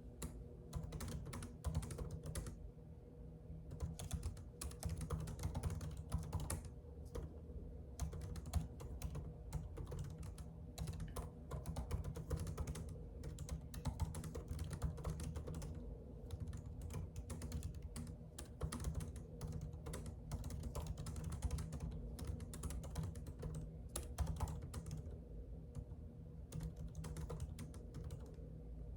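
Typing on a computer keyboard: quick runs of key clicks, pausing briefly a few times.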